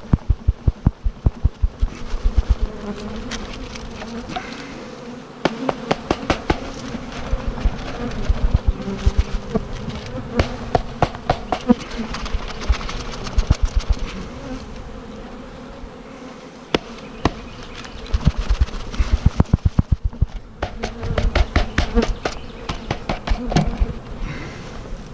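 A mass of honeybees buzzing loudly as they are dumped out of a package into a hive. The buzzing is interrupted by several runs of rapid knocking, several knocks a second, as the package box is shaken and knocked to get the bees out.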